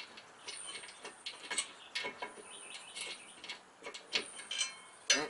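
Bolts, nuts and washers being fitted by hand to a steel front lower crossbar under a car, making irregular metallic clicks and taps, with a sharper knock near the end.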